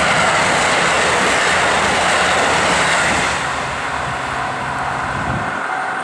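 KiHa 85 series diesel limited express passing over a level crossing, its engines and wheels making a loud rush of noise. The noise eases about three seconds in and its low rumble drops away near the end as the last car clears. The crossing's electronic warning bell is left ringing.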